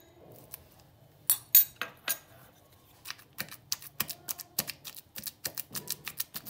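Wooden pestle pounding pitted dates in a stone mortar: quick knocks, about four a second, starting about halfway through. Before that, a few sharp clinks of a metal spoon against the glass bowl and mortar as the dates are scraped in.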